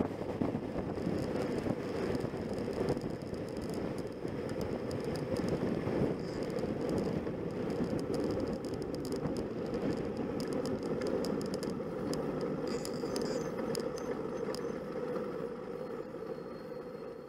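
Motorcycle riding noise picked up by an on-board camera: the engine running at road speed under rushing wind, with scattered light rattles in the second half.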